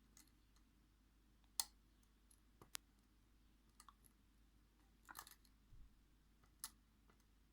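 Faint, scattered metallic clicks of a hook pick working the pins of an ASSA 600 lock held under tension, as it probes and sets the gin spool pins. About five separate clicks, the sharpest about one and a half seconds in, with a small cluster a little after five seconds.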